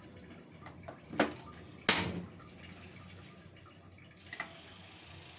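Gas stove burner being lit: two sharp clicks a little over a second in, the second and loudest with a short rushing tail as the gas catches, then a faint steady hiss of the flame. A smaller double click comes near the end.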